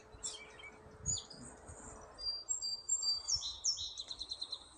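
A songbird singing: thin, high whistled notes from about two seconds in, breaking into a quick run of short repeated notes near the end.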